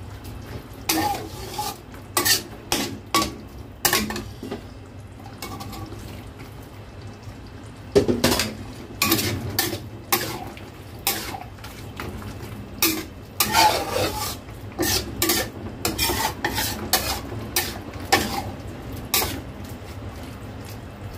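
Metal spatula scraping and clinking against a stainless-steel wok as seafood in a thick sauce is stirred, in irregular strokes with a few seconds' lull about five seconds in. A steady low hum runs underneath.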